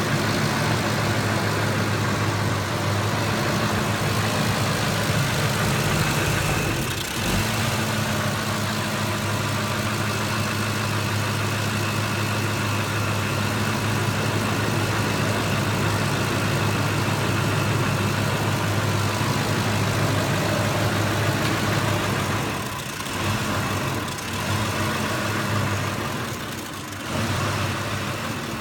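2005 Ford F-150's 5.4 Triton V8 idling roughly. Its steady hum sags briefly about seven seconds in and stumbles several times near the end.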